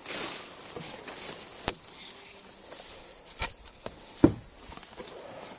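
Tall grass rustling as someone moves through it, with three sharp knocks spread out about a second and a half apart.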